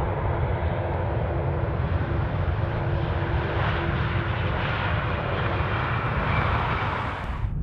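Jet engines of a departing Airbus A330 airliner under takeoff power, a steady rumbling noise with a few faint steady tones in it. The sound changes abruptly near the end.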